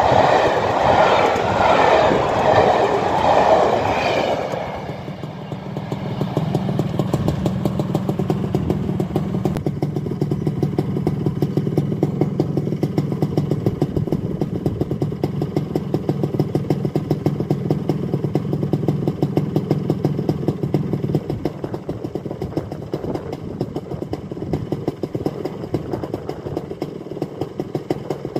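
Coaches of a passenger train clattering past over the rail joints, with the wheel noise ending abruptly about four seconds in. A steady low engine drone follows and fades away past twenty seconds in.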